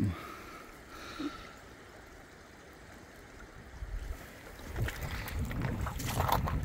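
Shallow river water running faintly over stones, then from about four seconds in footsteps crunching over loose shingle and river stones, growing louder toward the end.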